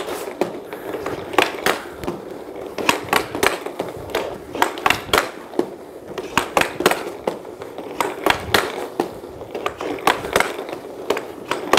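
Hockey skate blades scraping and carving across synthetic ice tiles during tight turns, with irregular sharp clacks of the stick blade striking the puck and the plastic surface while stickhandling.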